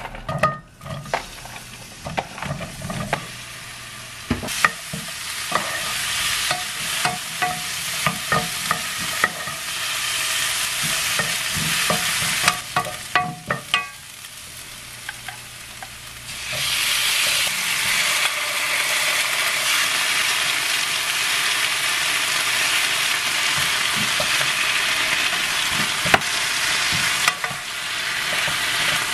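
Sliced onions frying in oil in a frying pan, sizzling, with a wooden spoon tapping and scraping the pan as they are stirred. About halfway through the sizzle turns louder and steadier once kimchi is in the pan with the onions.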